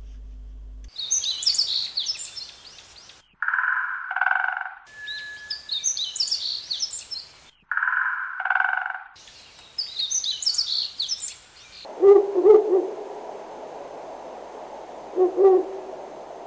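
Recorded animal calls. Stretches of high, fluttering bird-like chirping take turns with pairs of lower hoots, repeating about every four seconds. From about twelve seconds in, these give way to a lower, rougher sound with two louder bursts.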